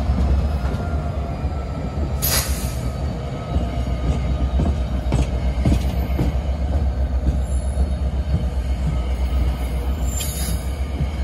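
NJ Transit Comet passenger coaches rolling past close by: a steady low rumble with scattered clicks from the wheels, and two brief high-pitched bursts, one about two seconds in and one near the end.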